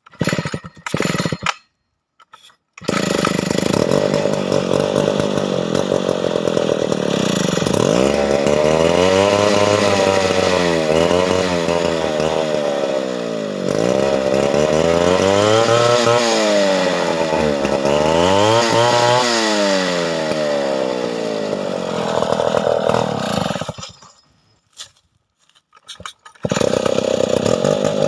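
Stihl 070 large two-stroke chainsaw: a few short bursts as it catches, then running with its engine speed repeatedly dropping and climbing again every two to three seconds. It stops briefly near the end with a couple of short bursts, then runs again.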